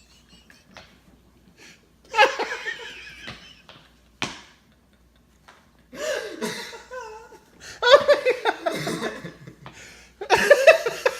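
Fits of laughter in several bursts with short pauses between, the longest and loudest in the second half.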